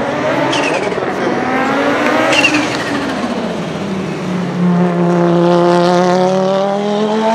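Audi Sport Quattro S1's turbocharged five-cylinder engine revving hard: the pitch climbs, falls off about two and a half seconds in, then holds high and loud through the second half.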